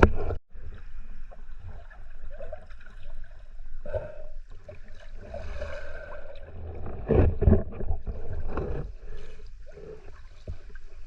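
Sea swell washing and gurgling around shallow rocks, heard underwater: an uneven, muffled sloshing with a louder surge and low thumps about seven seconds in. The sound cuts out briefly just after the start.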